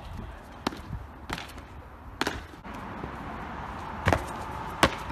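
A freerunner's feet and hands striking stone walls and paving during vaults and jumps: about five sharp, separate impacts, over steady outdoor background noise.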